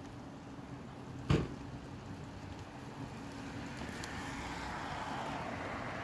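Gusty wind and rain noise, with a hiss that swells over the second half. One sharp knock about a second in is the loudest sound.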